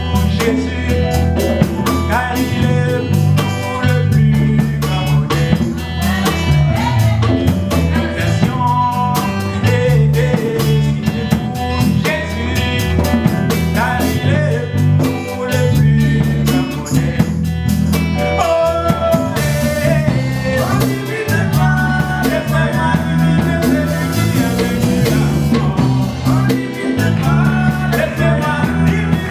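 Live gospel band playing a song: several men singing together over strummed acoustic guitar, bass guitar and drums.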